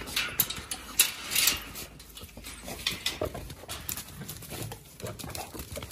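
A metal carabiner and chain on a wire kennel gate clink and rattle as the gate is unlatched and opened. A dog's paws then patter and scuffle on dirt as it runs out.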